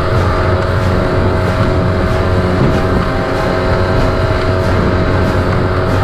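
20 HP Mercury four-stroke outboard running at a steady cruising speed, with a steady drone, while water rushes past the inflatable hull and light chop slaps against it about three times a second.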